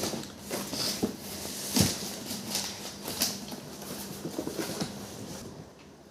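Light clicks, knocks and rustles of something being handled, over a faint steady hum that stops about five and a half seconds in.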